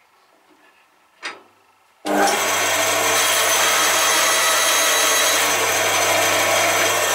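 A single click, then about two seconds in a band saw comes on suddenly and runs loud and steady with a low hum as a board is fed along the fence and ripped to width.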